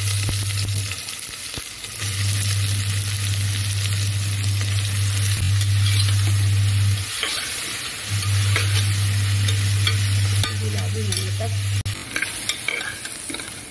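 Sliced onions sizzling in hot oil in an aluminium pressure cooker, stirred with a steel spoon scraping against the pot, with a few sharp clicks near the end. A low hum comes and goes, dropping out about a second in and again around seven seconds in, and stops near the end.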